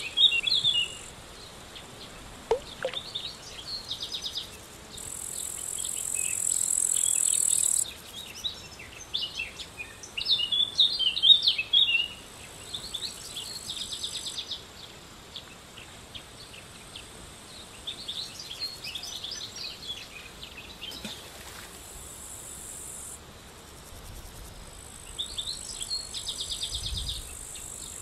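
Birds chirping and singing, with insects buzzing in high, steady stretches of a few seconds that start and stop.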